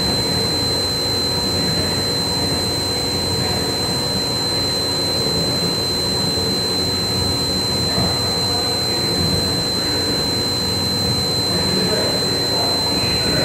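CNC machine running steadily: a constant machine noise with a steady high-pitched whine.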